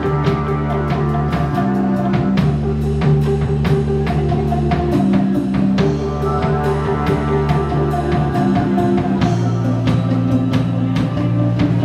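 Rock band playing live: electric guitar, electric bass and drum kit. Held bass and guitar notes sound under frequent drum and cymbal hits, with no singing.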